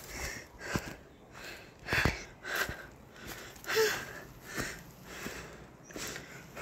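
A woman breathing hard, quick audible breaths about one every two-thirds of a second, from the effort of walking with a heavy load of firewood carried on her back.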